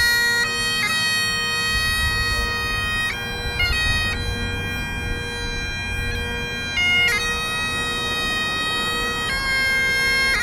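Bagpipes playing a slow melody over a steady drone, each change of note marked by quick grace notes.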